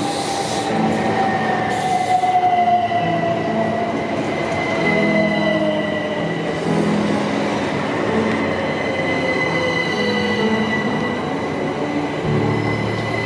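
Southern Class 377 electric multiple unit running into a platform and slowing, its electric traction whine falling steadily in pitch over the wheel and carriage rumble, with a thin steady high-pitched squeal from the wheels and brakes.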